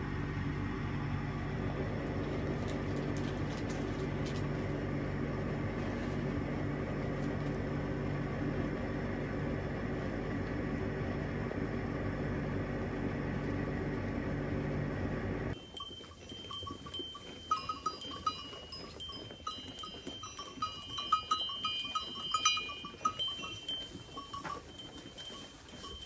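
A steady low machine hum that stops suddenly about 15 seconds in. Then short, high ringing clinks come and go: small bells worn by goats as they move and feed.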